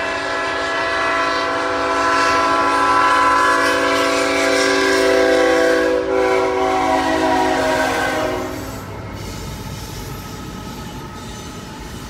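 A CSX diesel freight locomotive's horn sounds a chord of several notes in one long blast of about nine seconds, with a brief dip about six seconds in, as the train approaches the grade crossing. Once the horn stops, the train's low rolling rumble remains as it reaches the crossing.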